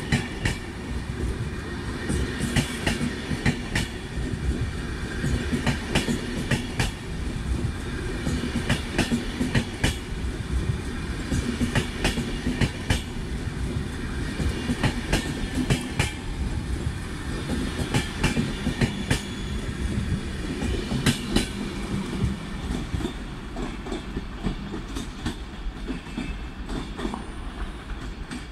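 A train rolling through a station, its wheels clacking irregularly over rail joints and points, with a faint high whine.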